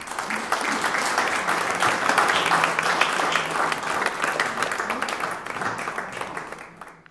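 Audience applauding, a dense patter of many hands clapping that starts suddenly, fades near the end and cuts off.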